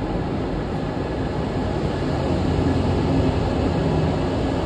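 Brightline train with Siemens Charger SCB-40 diesel-electric locomotives pulling out of the station, a steady low rumble.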